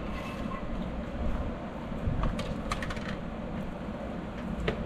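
Scattered light clinks and knocks from tools and metal being handled during dock construction work, a cluster of them about halfway through and another near the end, over a steady low rumble.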